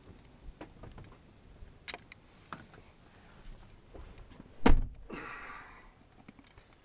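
A car door shutting with one loud thunk about two-thirds of the way through, after a few light clicks and handling knocks. A short rustle follows.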